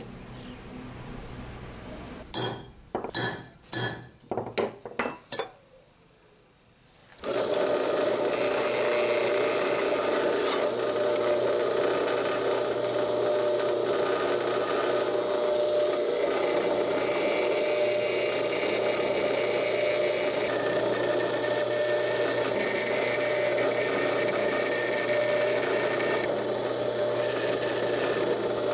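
A few sharp knocks, then about seven seconds in an electric drill starts and runs steadily, boring pin holes through the steel tang of a knife blank clamped in a vise.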